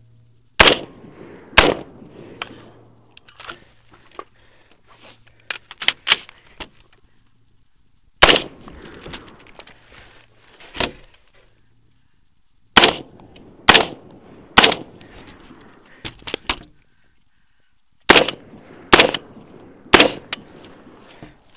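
Gunshots from a BCM mid-length AR-15 rifle firing 5.56 mm ammunition, about ten sharp shots in pairs and strings of three roughly a second apart. Fainter shots fall in between.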